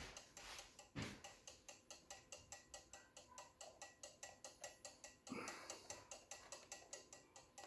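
Cuckoo clock movement ticking quickly and evenly, about four ticks a second, with two brief handling noises, about a second in and again past the middle.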